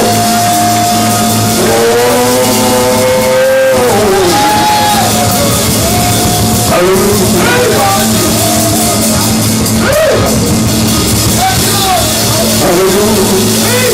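Loud live church praise-team music: drum kit and steady bass under held, gliding melodic lines.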